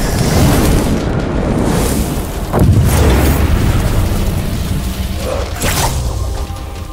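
Film sound effects: a deep rumbling boom that swells sharply about two and a half seconds in, with a whoosh near the end.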